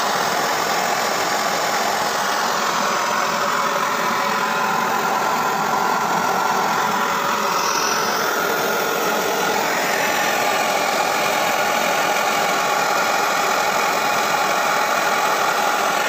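A lit single gas burner running, its flame giving a steady, loud rushing hiss.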